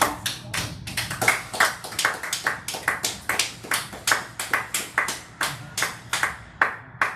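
Spectators clapping by hand: a steady run of sharp claps, about three or four a second, that stops just before the end.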